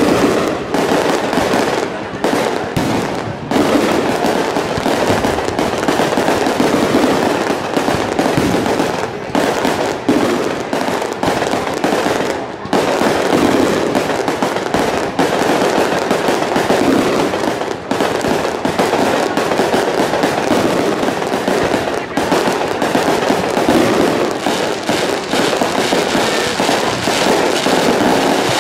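Aerial fireworks display: a dense, unbroken barrage of bursting shells and crackling stars, many sharp pops and reports running into one another.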